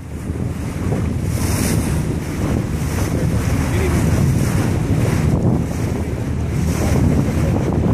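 Wind buffeting the microphone over the steady rush of water along the hull of a moving tour boat, with hissy surges every second or two.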